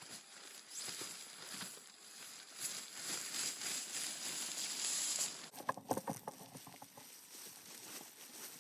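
A person making animal impressions with the mouth: a long breathy hiss that stops suddenly a little past five seconds in, then a brief run of choppy voiced sounds about six seconds in.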